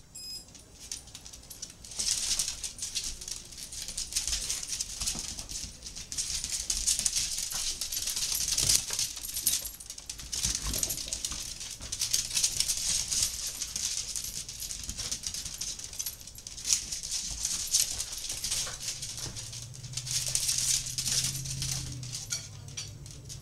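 Dachshunds scampering and scrabbling on a hardwood floor: nails clicking and skidding on the boards in quick, irregular scuffles.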